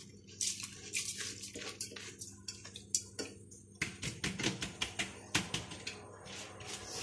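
Soaked biryani rice being tipped from a plastic bowl into a metal pot of water: light clicking and pattering of grains, scattered at first, then a quick run of clicks about four seconds in.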